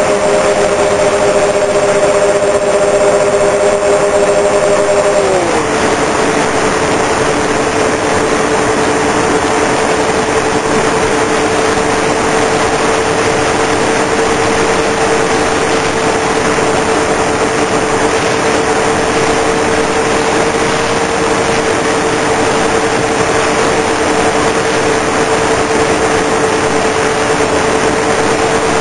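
Twin brushless electric motors and propellers of a Multiplex TwinStar II RC plane running at a steady pitch, under heavy wind rush on the onboard microphone. About five seconds in, the motor pitch drops together to a lower steady note as the throttle is eased back.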